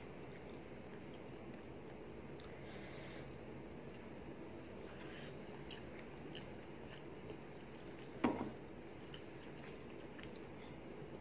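A person chewing a mouthful of rice and curry eaten by hand, with scattered small mouth and finger clicks, and one short louder thump about eight seconds in.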